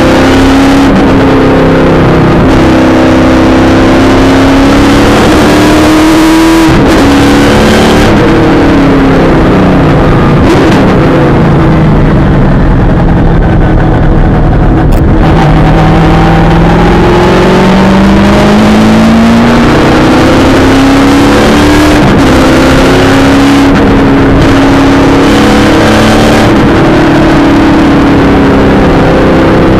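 V8 Supercar's V8 engine at racing speed, heard inside the cockpit, very loud throughout. Its note climbs and drops again and again as the car accelerates, brakes and changes gear, with short breaks at the shifts.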